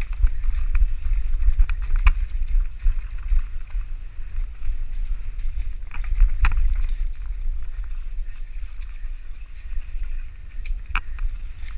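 Wind buffeting the microphone of a camera riding along on a mountain bike, with scattered clicks and rattles from the bike over rough trail; the sharpest knocks come about two, six and eleven seconds in.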